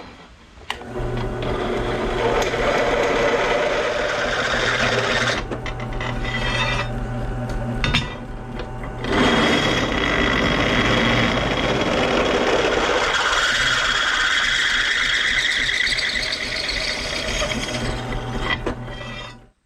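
Electric drill boring holes through steel plate: a steady motor hum under a grinding cutting noise that eases briefly twice, then a whine that rises in pitch about two-thirds of the way through, before the drill stops near the end.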